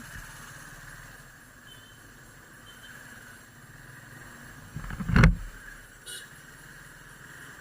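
Motorcycle riding on the road: steady engine and road noise with wind on the microphone. About five seconds in comes a loud, brief rush of low noise, then a short click-like sound.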